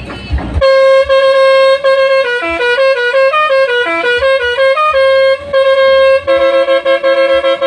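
Telolet multi-tone bus horn playing its tune. A long held blast is followed by a quick run of short notes stepping up and down, then more long held blasts with a lower second tone joining near the end.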